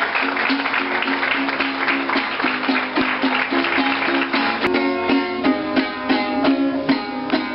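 Lively music of quick plucked strings, with steady rapid notes. A short click comes about two-thirds of the way in, and after it the notes sound more distinct.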